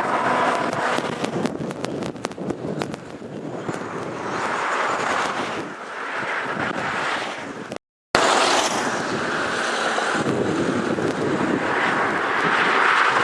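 Wind gusting across the microphone in swells of rushing noise, with a few faint clicks early on and a brief total cut-out of the audio about eight seconds in.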